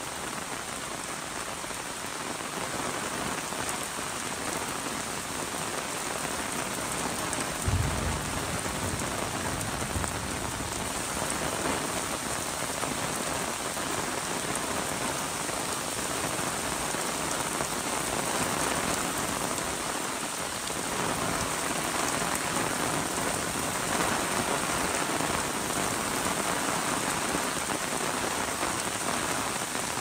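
Steady rain pattering on an umbrella overhead and on a wet street. A brief low thump comes about eight seconds in, with a fainter one about two seconds later.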